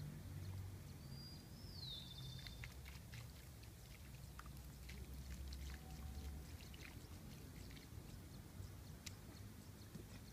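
Water poured from a plastic jug onto bare feet and grass, heard as faint scattered splashes and drips over a low steady hum.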